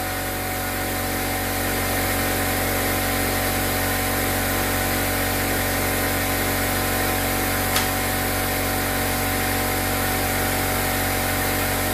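Air compressor running steadily as it pumps its tank back up to pressure, then cutting off abruptly at the very end.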